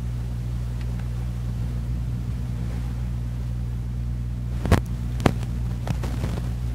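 A steady low hum, with three sharp clicks between about four and a half and six seconds in.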